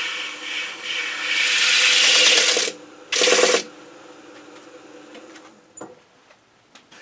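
Rubber cleaning stick pressed against a large sanding disc spinning on a wood lathe to clean the sandpaper: a long scraping pass of about two and a half seconds, then a short one. The lathe's steady whine stops about six seconds in.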